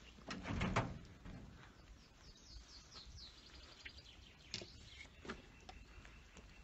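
A small bird chirping in a quick run of about a dozen short high chirps, from about two to three and a half seconds in. A brief louder noise comes about half a second in, and a few scattered clicks follow.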